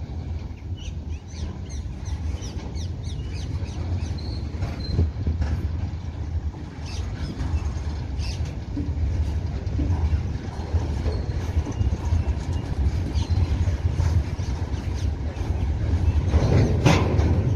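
Freight train of covered goods wagons rolling past: a steady low rumble of wheels on rail with frequent metallic clicks and clacks, and a louder clank near the end.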